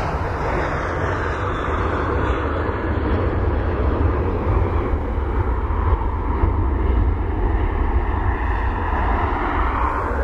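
Jet airliner engines running loud and steady at close range: a deep rumble with a faint falling whine early on.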